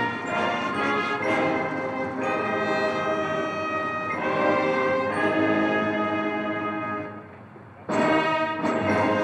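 Brass band playing slow, sustained chords; the music dies down for just under a second about seven seconds in, then comes back in full.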